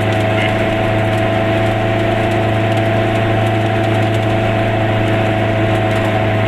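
Goggomobil's small two-stroke twin engine running steadily while the car drives at an even speed, heard inside the cabin, with a steady high whine over the low engine note.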